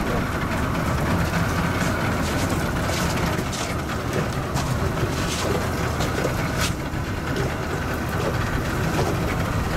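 Mercury outboard motor running steadily at low revs, mixed with wind and water noise.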